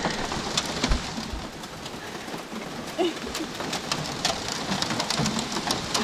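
Hail falling hard on a car's raised boot lid: a dense hiss of hits with sharp clicks of single stones.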